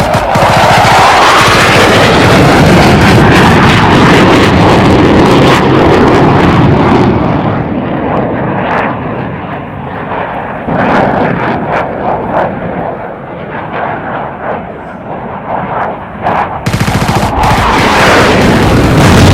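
War-zone sound effects: gunfire and machine-gun shots mixed with aircraft engine noise. The mix is loud for the first several seconds, turns quieter and duller with scattered shots in the middle, and comes back loud near the end.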